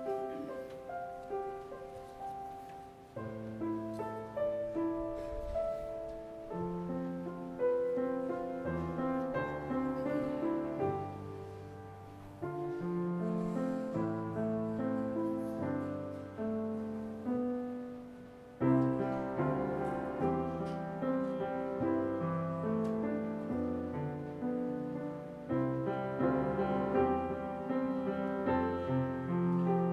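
Solo Yamaha grand piano playing a hymn arrangement in chords, each note ringing and dying away. The playing swells and eases, and after a short dying away a loud chord comes in just past the middle.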